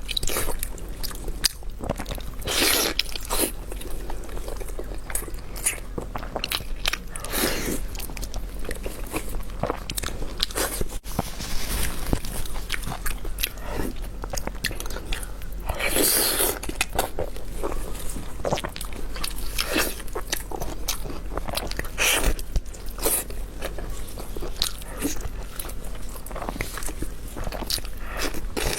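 A person biting and chewing crunchy food, with irregular sharp crunches between steadier chewing.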